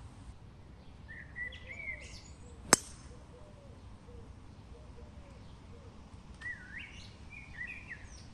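A golf driver striking the ball off the tee: one sharp crack about three seconds in, by far the loudest sound. Birds sing in short chirping phrases before and after the strike.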